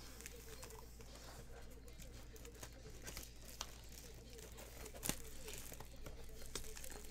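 Plastic shrink wrap on a trading-card box crinkling and tearing as the box is unwrapped and handled, with a sharper click about five seconds in.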